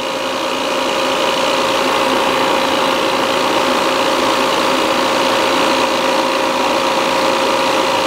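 Appion G5 Twin refrigerant recovery machine running steadily, a constant mechanical hum with a steady whine, its compressor pulling the last of the R-410A out of a home air conditioner into a recovery tank as the system pressure nears vacuum.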